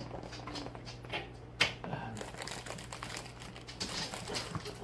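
Light handling noises: scattered small clicks and rustling, with one sharp tap about one and a half seconds in.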